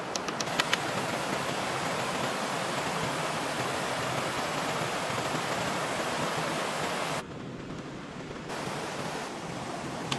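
Steady rushing of a stream's running water, with a few sharp knocks in the first second. The rush drops to a quieter level about seven seconds in.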